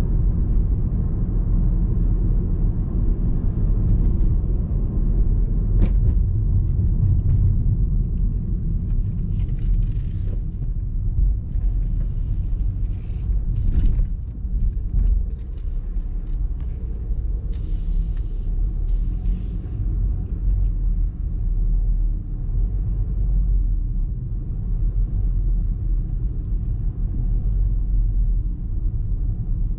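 Car on the move: steady low road and engine rumble, with a sharp click about six seconds in and a few brief higher hissing swells partway through.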